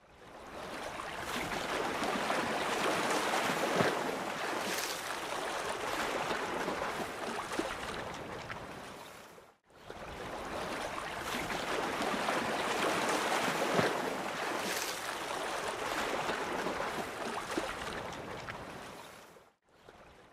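Rushing water like waves or surf, rising in and fading out over about ten seconds, then the same swell again.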